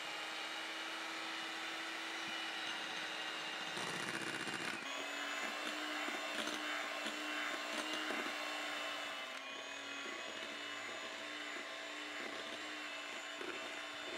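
Electric hand mixer running steadily, its wire beaters whipping cake batter in a glass bowl. There is a brief louder rush about four seconds in, then a rapid run of small knocks as the beaters tap the bowl.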